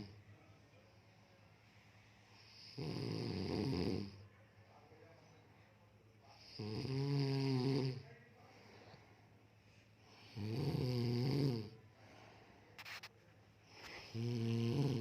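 A person snoring heavily: four long snores about every four seconds with quiet breathing between, the later ones with a clear droning pitch. A brief click about 13 seconds in.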